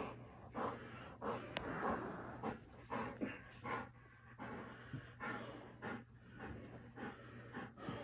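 Dog panting hard in short, irregular breaths, about two a second, while being wrestled and rolled around in rough play.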